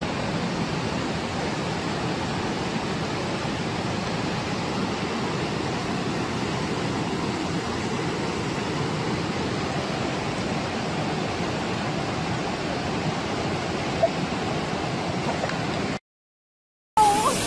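Swollen, muddy floodwater rushing past as a fast torrent: a steady, even rush of water that stops abruptly about a second before the end.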